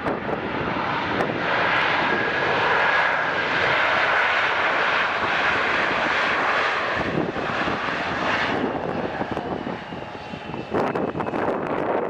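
An airplane's engines passing: a loud rushing roar with a steady high whine that eases off after about eight seconds.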